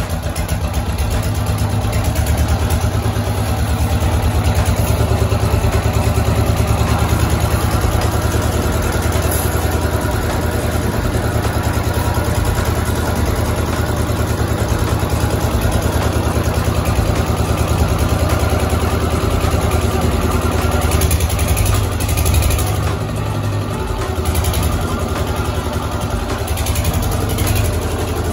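Small engine-driven water pump running steadily, pumping water down the drill pipe of a hand-turned borewell rig.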